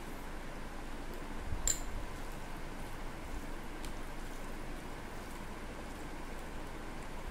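Fingers mixing and squishing vegetable pulao rice with raita on a plate, a soft, wet squish, with one sharp click about one and a half seconds in.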